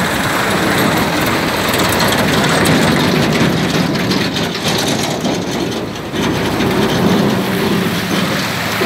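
A Mahindra 265 DI tractor's diesel engine running as it wades through floodwater, mixed with floodwater rushing and splashing across the road.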